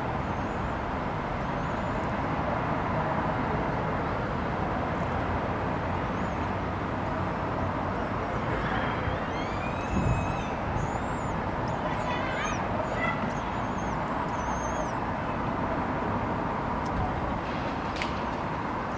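Steady urban traffic hum, with a run of thin, high, wavering cheeps midway from common kestrel chicks begging while being fed, and a soft thump among them.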